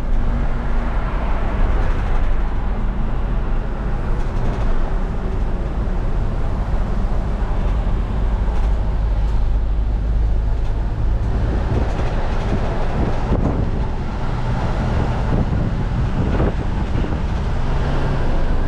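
Cab interior of a Dennis Eagle refuse truck under way: its Volvo six-cylinder turbo diesel running with a steady low rumble under road and cab noise, the engine note changing partway through.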